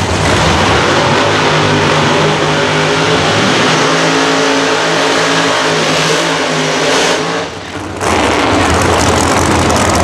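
Drag-race car engine running at high revs through a burnout, loud and continuous, with a steady engine note in the middle; the sound dips briefly about three-quarters of the way in, then comes back just as loud.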